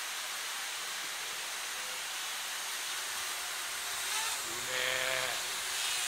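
Parrot Bebop quadcopter hovering close overhead: a steady whirring hiss from its propellers. About five seconds in, a short voiced sound, such as a brief exclamation, rises over it.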